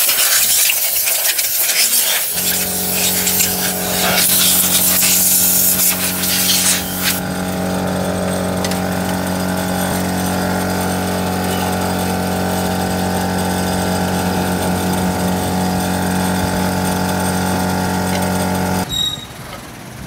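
A loud hiss for the first several seconds, overlapped from about two seconds in by a steady electric motor hum. The hum runs on its own after the hiss stops and cuts off abruptly shortly before the end.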